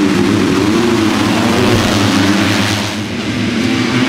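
A full field of four-stroke motocross bikes revving hard together at a race start and accelerating away, many engines at once.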